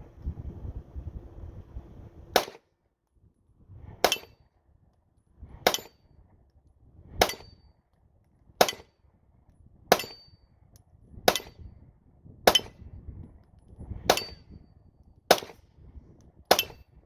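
A 9mm Glock-pattern pistol fired in slow, single aimed shots: eleven sharp reports, the first about two seconds in, then one every second and a half or so.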